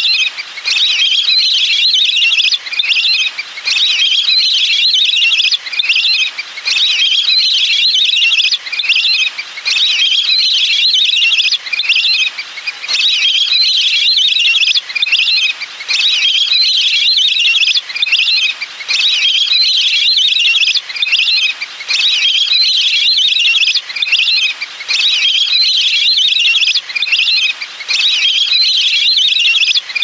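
Lesser whistling ducks calling: shrill, whistled notes in dense phrases, broken by short gaps every one to three seconds, as a continuous flock-call lure recording.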